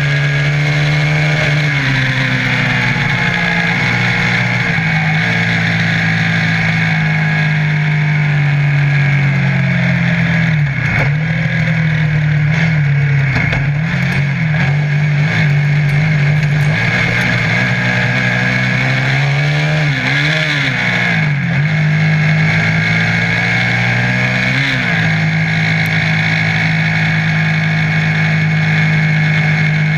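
Off-road buggy's engine running under way at a steady pitch, the note dipping and climbing back several times in the middle of the run.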